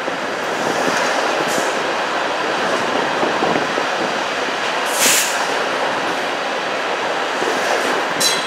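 TTC streetcar running along the rails, heard from on board: a steady rumble and rattle of the car and its wheels. A short hiss comes about five seconds in, and a brief high squeal comes near the end.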